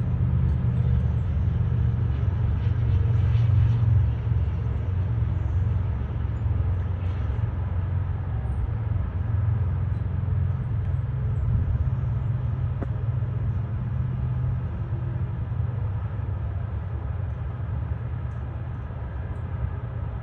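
Airbus A320-211 airliner's CFM56 jet engines heard as a steady low rumble that slowly fades toward the end.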